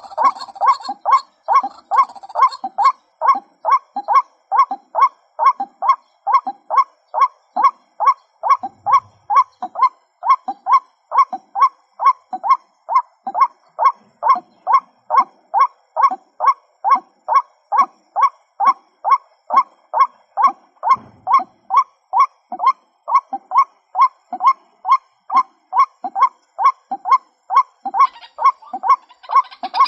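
Female white-breasted waterhen calling: a monotonous run of short 'kwak' notes, about two a second, repeated steadily. Near the end a higher hiss joins in.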